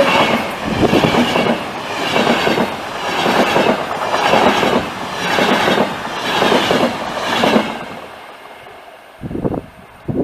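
A train passing close by, its wheels clattering over the rail joints in regular swells about once a second as the cars go past. The sound fades out about eight seconds in, leaving a couple of short low bumps near the end.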